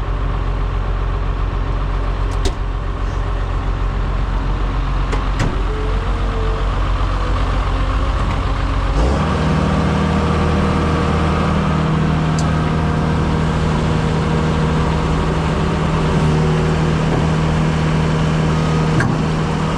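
Heavy equipment diesel engine running steadily, then revving up to a higher steady speed about nine seconds in, with a few sharp metallic knocks scattered through.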